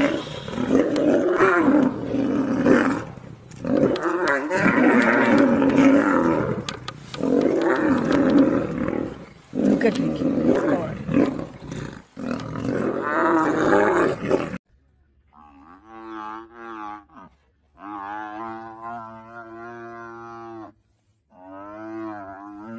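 Two male lions fighting, roaring and snarling loudly in repeated surges with short breaks; the sound cuts off suddenly about fifteen seconds in. After it, a quieter long bawling call comes three times, from a young buffalo facing a lion.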